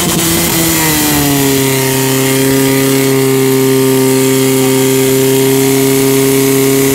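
Portable fire pump engine running flat out, a loud steady high-revving note that climbs a little about a second in and then holds, driving water through the hose lines.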